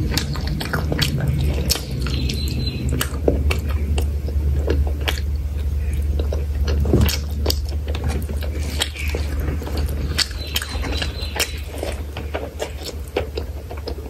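Close-miked eating by hand: chewing and biting of chicken curry and rice, with many short wet clicks as fingers mix rice and curry on the plate, over a steady low hum.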